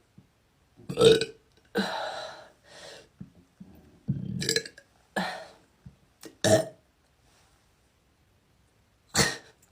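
A woman forcing up a string of deliberate burps from swallowed air, about seven in all, the loudest about a second in, then a pause before a last one near the end.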